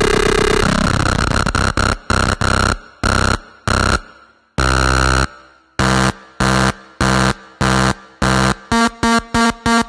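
Cadence four-oscillator drone synth putting out a dense, harsh buzzing noise drone that breaks up into chopped, stuttering pulses as its oscillator count knobs are turned. It settles into about two pulses a second, then quickens to about four a second near the end.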